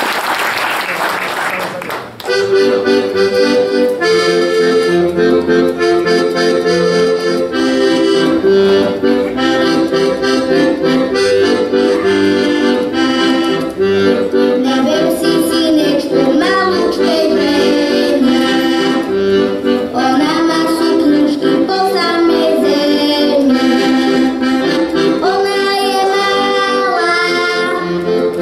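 Applause dies away about two seconds in, then a piano accordion plays a tune solo.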